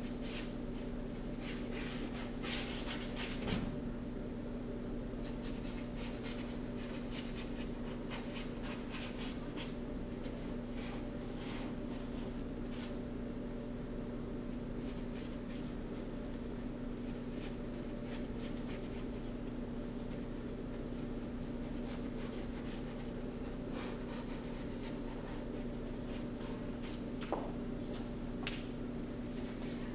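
Paintbrush scratching and rubbing paint onto a stiff board in short, repeated strokes, busiest a few seconds in. A steady low hum runs underneath.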